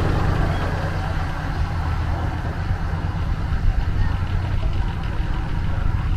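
Steady low drone of a river passenger boat's engine, heard on board while underway.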